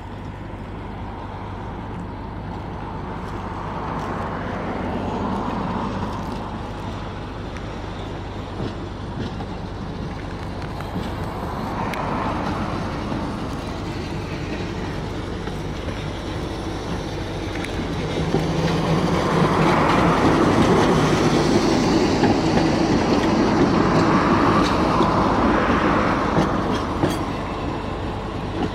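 A KTM tram running round a curved turning loop, its wheels rumbling and clattering on the rails. It gets louder in the second half as it passes close by.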